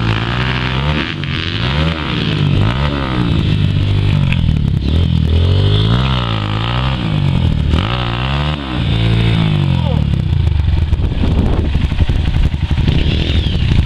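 Dirt bike engine revving up and down again and again, about once a second, as the bike churns through a mud bog. From about ten seconds in it settles into a steadier, rougher run.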